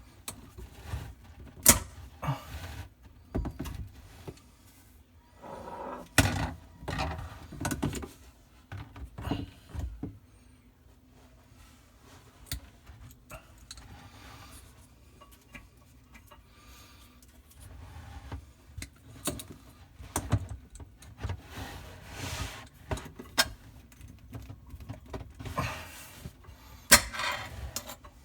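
Irregular clicks, knocks and small metallic rattles of hands working on faucet supply fittings and their retaining pins under a sink vanity.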